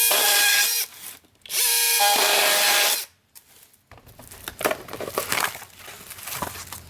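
A cordless power tool's motor runs in two bursts of about a second and a half each, steady in pitch. After them come light clicks and rattles of packaging being handled.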